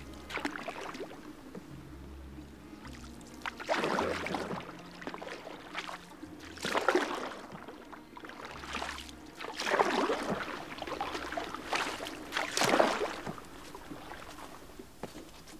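Canoe paddle strokes in shallow water thick with lily pads and grasses: a splash and swish with each stroke, coming every few seconds, the strongest about seven seconds in and near the end.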